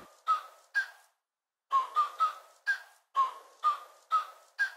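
Outro music: a light tune of short high notes, about two a second, in phrases broken by brief pauses.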